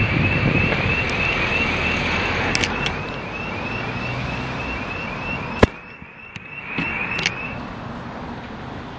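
Wind and road noise from a bicycle ride along a town street, fading about two-thirds through, with a small high chirp repeating about three times a second and a few sharp knocks, the loudest just past the middle.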